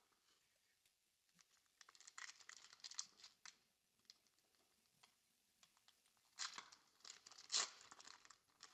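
Faint crinkling and tearing of a foil booster-pack wrapper being handled and torn open, in two short bouts of crackles.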